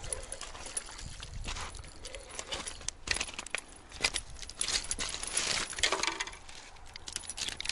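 Loose river-shore pebbles clicking and clattering in many small, irregular knocks, as a landed fish is dragged over the stones and grabbed by hand.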